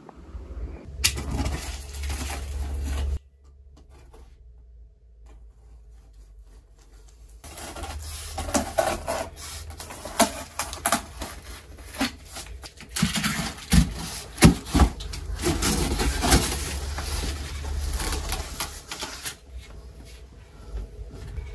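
Cardboard shipping box of a flat-pack coffee table being opened and unpacked: cardboard scraping and rubbing, with many small knocks and clicks as flaps, packing and panels are handled, busiest from about a third of the way in until near the end.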